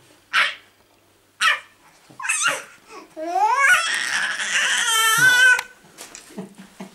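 Baby squealing and babbling excitedly: a few short breathy squeaks, then a long high-pitched squeal that rises and wavers for about two and a half seconds, starting about three seconds in.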